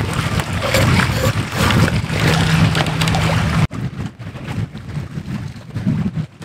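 Wind buffeting the microphone on an open boat deck, a loud, gusty rumble that drops abruptly to a lighter rumble a little under four seconds in.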